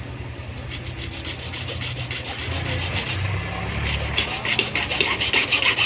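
Fast, rhythmic scraping strokes of a tool cutting a hole through the plastic wall of a water tank, growing louder near the end.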